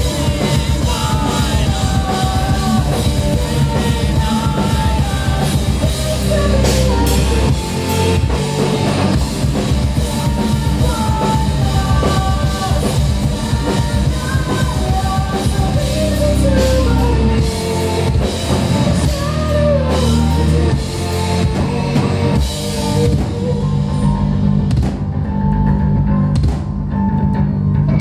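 Live band playing a rock song: a woman sings the lead melody over electric guitars, bass guitar and a drum kit.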